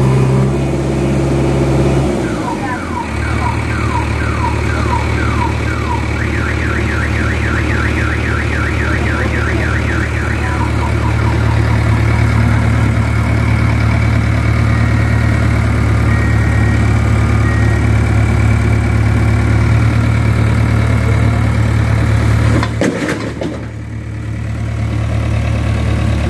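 JCB 3DX backhoe loader's diesel engine running steadily under load while pushing with its boom. From about two seconds in, an electronic alarm chirps over it in fast repeating warbles for about ten seconds, the second half faster. The engine sound breaks off briefly near the end.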